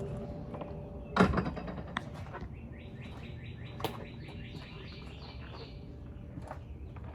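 A bird trilling: a rapid run of short, repeated high chirps, about four or five a second, starting around two and a half seconds in and lasting about three seconds. A sharp knock sounds about a second in, and a fainter click near four seconds.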